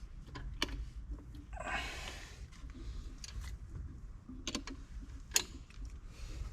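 Scattered sharp clicks and light knocks of work at a front brake caliper while the brakes are bled, with a brief rushing noise about a second and a half in.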